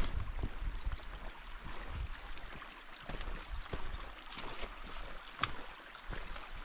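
Mountain stream rushing steadily, with occasional sharp clicks and low thumps over the water noise.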